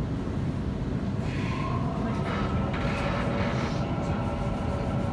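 A Waratah Series 1 electric train running, heard from inside the passenger car: a steady low rumble of wheels and running gear, with a steady whine coming in about a second in.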